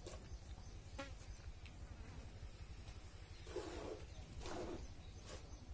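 Milk squirting into a steel bucket as a cow is milked by hand: two short squirts about a second apart in the second half, over a faint low steady rumble.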